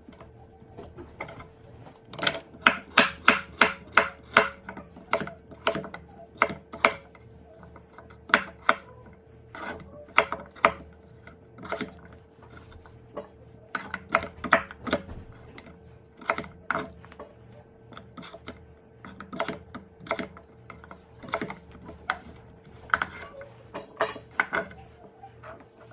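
Chef's knife chopping raw potatoes into cubes on a wooden cutting board: sharp knocks of the blade on the board in quick runs of about three a second, with short pauses between. A faint steady hum runs underneath.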